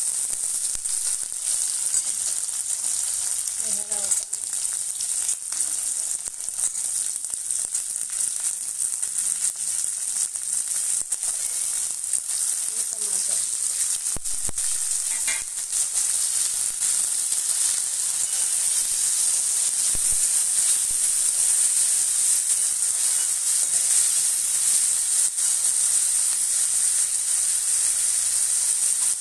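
Chopped onion, green chillies, capsicum, tomato and peas sizzling steadily in hot oil in a kadhai as they are stir-fried. A steel spoon scrapes and clinks against the pan again and again.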